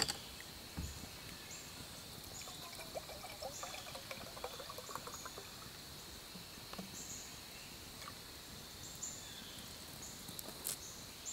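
Water poured from a 16-ounce plastic water bottle into an 18-ounce metal camp cup, a faint trickling pour.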